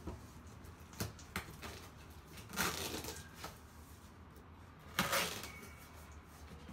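Cardboard box being opened by hand: a few sharp clicks and two short tearing rustles as the taped flaps and packing tape are pulled apart.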